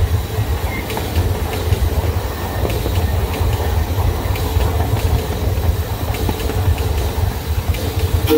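Miniature ride-on train rolling along its narrow-gauge track: a steady low rumble from the wheels and running gear, with light clicking as the wheels pass over the rail joints.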